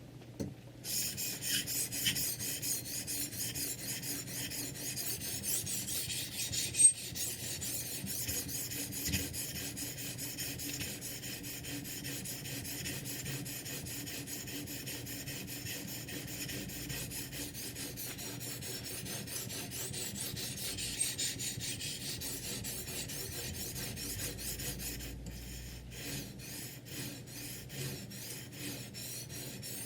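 Sharpening stone on a Ruixin Pro 3 guided knife sharpener rasping back and forth along a kitchen knife's edge in quick, repeated strokes, starting about a second in.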